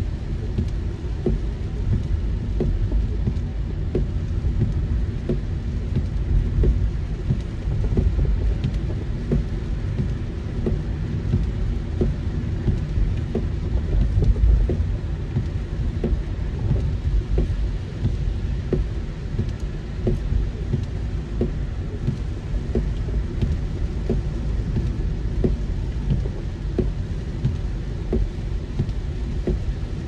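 Heavy rain falling on a car's roof and windshield, heard from inside the moving car: a steady low rumble of road and rain with many scattered sharp drop hits.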